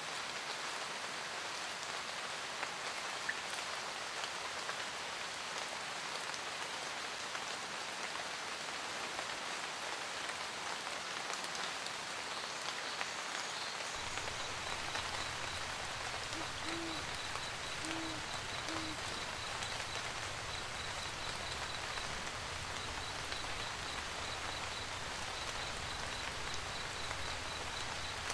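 Steady rain pattering on a camper van roof. About halfway through a low, steady rumble comes in, and an owl hoots three times soon after, with a faint high, evenly pulsed chirping underneath.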